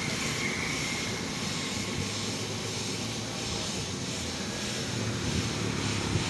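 Gravity-feed paint spray gun hissing steadily as it sprays blue paint onto a motorcycle panel, over a steady low mechanical drone.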